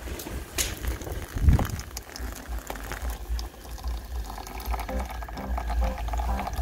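Hot water poured from a kettle onto ground coffee in a paper pour-over filter, splashing and trickling, while the soaked grounds bubble.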